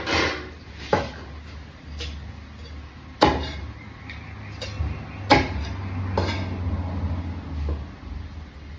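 Heavy cleaver chopping through a king mackerel onto a wooden block: about half a dozen sharp chops a second or two apart, the loudest about three seconds in.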